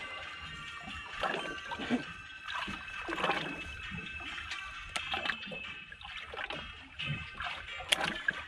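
Water slapping and trickling against the hull of a small aluminium boat drifting at sea, in irregular splashes with the loudest one near the end.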